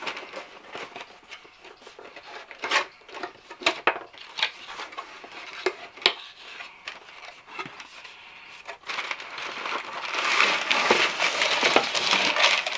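Cardboard shoe box being opened and handled: scattered taps and knocks of the lid and flaps, then from about nine seconds in a longer stretch of paper and cardboard rustling as the packing inside is pulled out.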